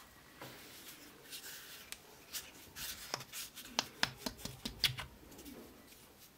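Sharp wooden clicks and knocks with some rubbing as the front wooden horn of an old wooden hand plane is twisted and worked loose from its socket in the plane body. The clicks come in a quick irregular cluster between about two and five seconds in.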